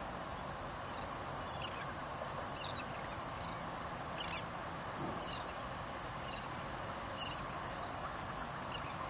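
Steady wind and water background with short, high bird chirps every second or two.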